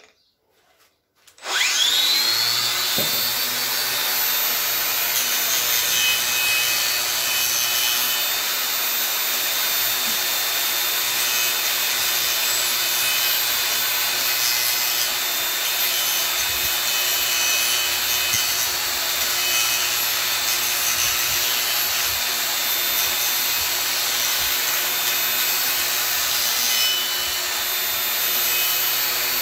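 An angle grinder with an abrasive disc is switched on about a second and a half in, whining up to speed. It then grinds steadily and loudly into ash wood, shaping a rough-carved bowl.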